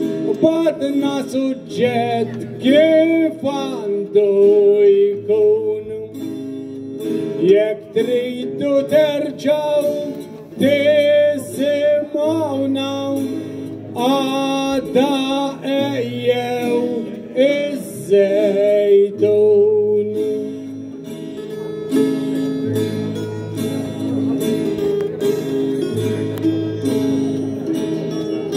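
Maltese għana: a man sings a long, winding folk melody into a microphone over three acoustic guitars. The voice stops about two-thirds of the way through and the guitars play on alone.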